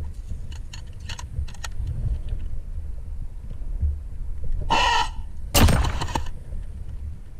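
An airsoft gun fires with a sudden sharp burst lasting under a second; it is the loudest sound. Just before it comes a short harsh cry. Under both runs a steady low rumble, with a few light clicks near the start.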